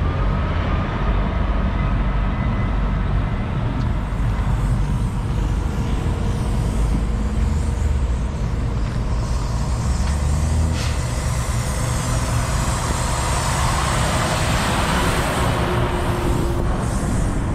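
Semi-truck's diesel engine running steadily at low speed, heard from inside the cab, with a rising hiss near the end.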